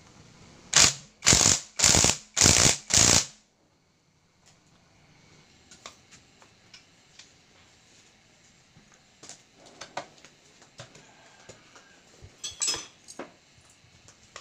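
Cordless impact wrench hammering on a bolt at the flywheel end of a Yamaha R15 engine in five short bursts about half a second apart, followed by scattered light clinks of metal parts and bolts being handled.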